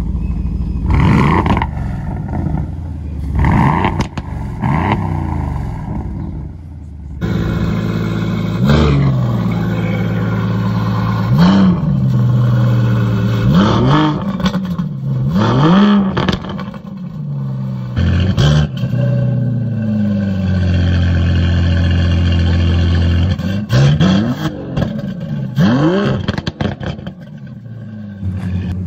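An Aston Martin Vantage's V8 engine is blipped three times, each rev rising and falling back to idle. About seven seconds in, a different Aston Martin, a DBS, takes over: it is revved again and again in quick up-and-down sweeps, held steady for a few seconds about two-thirds through.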